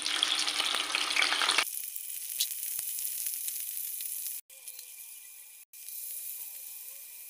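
Salted peda fish (salted mackerel) frying in hot oil in a wok: a dense sizzle that drops suddenly about a second and a half in to a quieter, thinner sizzle, broken twice by brief gaps.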